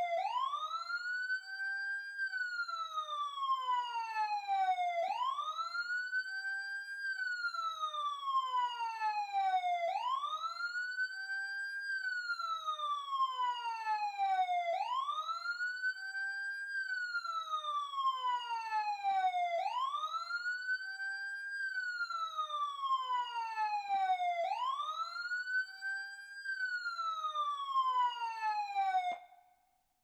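Emergency siren heard close up, sounding a slow wail. In each cycle the pitch rises quickly, then falls slowly, and the cycle repeats about every five seconds. It cuts off suddenly near the end.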